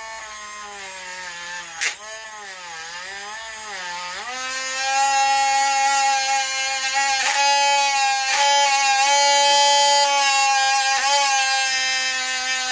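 Parkside PFBS 12 A1 12-volt cordless rotary multi-grinder running with a high whine, its bit grinding a small piece of metal. The pitch sags and wavers for a couple of seconds as the bit bears on the metal. From about four seconds in it rises and holds steady and louder, with a few short clicks as the bit catches.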